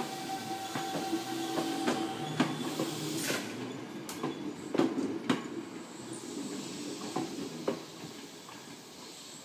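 Toei 5300-series train rolling slowly into the depot: its steel wheels clack irregularly over the track joints and points, loudest around two and five seconds in, over a steady hum that stops about two and a half seconds in.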